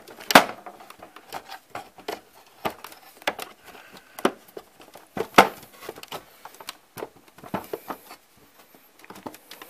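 Plastic clicks, knocks and handling noise as a Macintosh IIci's power supply is freed from its retaining tab and pulled out of the plastic case. Two sharper knocks, about half a second in and about five seconds in, are the loudest.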